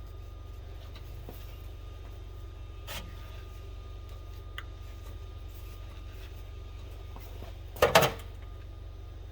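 Mercedes 722.9 seven-speed automatic transmission in a 2021 Sprinter running with a steady low hum and a fast, even clicking that rotates with it, a noise coming from inside the transmission body. A light knock about three seconds in and a loud double knock near the end.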